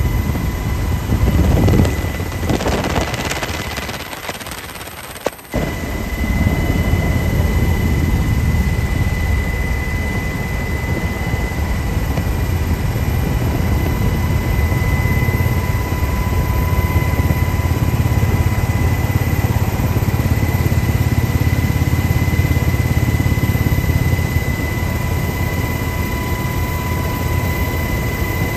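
Helicopter in flight, heard from the aircraft carrying the camera. A loud rush of noise in the first few seconds cuts off suddenly about five and a half seconds in, and a steady low rotor and engine drone with a constant high whine follows.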